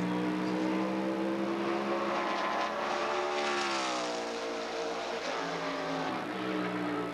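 NASCAR race truck's V8 engine passing by at speed. Its pitch climbs as it approaches, then sweeps sharply down as it goes past about four seconds in, and it fades away.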